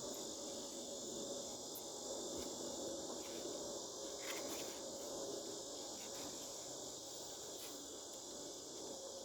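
Steady, high-pitched chirring of insects such as crickets, with a few faint clicks about two and four seconds in.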